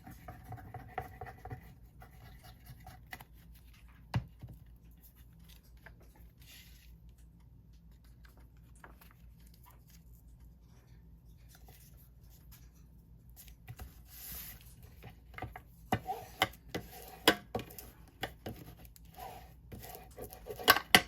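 Hands handling paper and card on a journal cover: rustling and scratching with short taps and knocks, mostly quiet through the middle and getting busy in the last several seconds.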